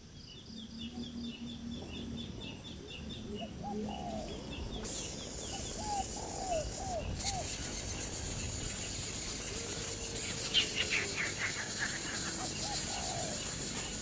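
Birds calling: a rapid series of short high chirps, repeated short curved lower notes, and a quick run of falling notes about ten seconds in.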